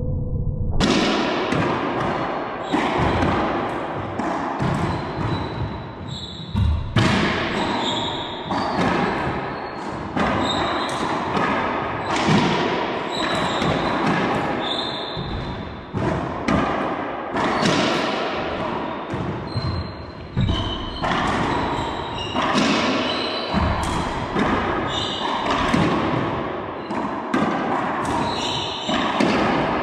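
Racquetball rally in an enclosed court: the rubber ball is struck by racquets and smacks off the walls and hardwood floor again and again, about once a second or faster, each hit echoing loudly off the walls. Short high squeaks of sneakers on the hardwood floor come between the hits.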